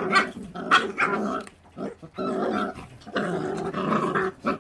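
Feral-dog puppies growling over raw meat as they eat, a low rumbling growl in several long stretches with a few sharp clicks between: food guarding, one pup angry at another near its share.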